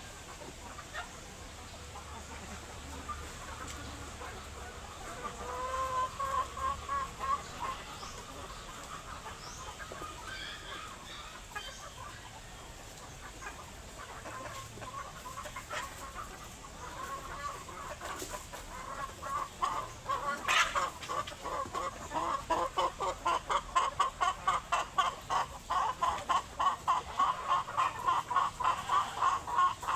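Chickens clucking, with scattered calls at first and then a steady run of rapid clucks, about three a second, growing louder for the last third.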